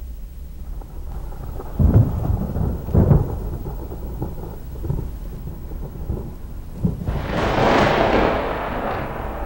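Thunder: two deep booms about two and three seconds in, then a louder, longer roll of thunder with a hiss of rain about seven seconds in.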